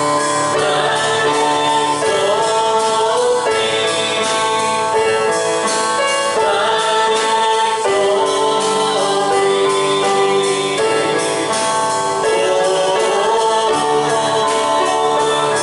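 Gospel worship song: several voices singing long held notes over a band, loud and steady.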